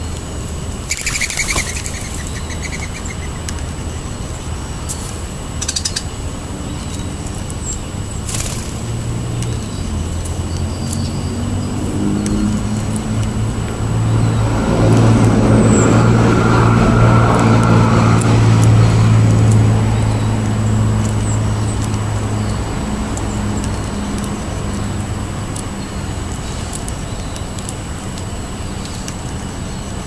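A few short flurries of bird wingbeats and chirps near the start, then a passing motor vehicle: its engine hum and tyre noise build over several seconds, hold loudest for a few seconds mid-way, and fade away.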